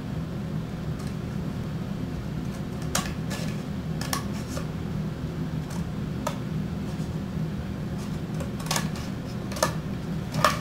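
Scissors snipping through a cardboard tube: about eight separate sharp cuts, spread unevenly, over a steady low background hum.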